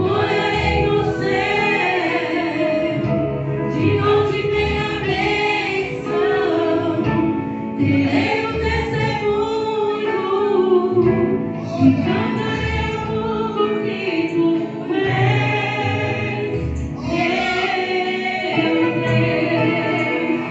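A woman singing a gospel song into a microphone, amplified through the church loudspeakers, over a steady instrumental accompaniment with a regular low beat.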